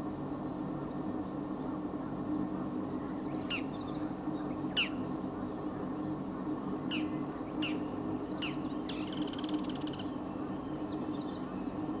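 Bull-headed shrike calling: a handful of sharp single notes that slide down in pitch, spaced about a second apart, then a quick rattling chatter about nine seconds in. A steady low hum runs underneath.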